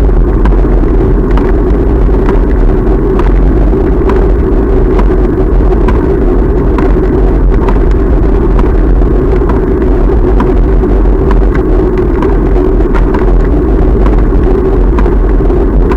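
Steady wind rumble on a bicycle-mounted camera's microphone and road noise as the bike rolls along a street, with frequent small clicks and knocks from bumps in the road surface.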